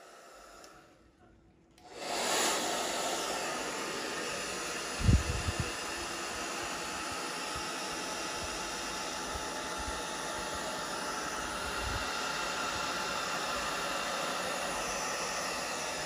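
Wazor 1875-watt hair dryer switched on about two seconds in and blowing steadily. A few low thumps come about five seconds in.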